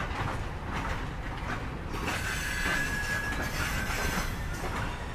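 Loaded Herzog gravel hopper cars rolling past on the rails, their wheels giving a steady rumble with faint clanks. A thin, high wheel squeal rises out of it about two seconds in and holds for a couple of seconds.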